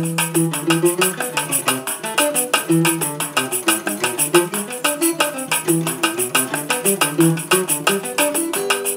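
A small acoustic string instrument playing a lively run of chords and melody notes, over a fast, even, shaker-like rhythm.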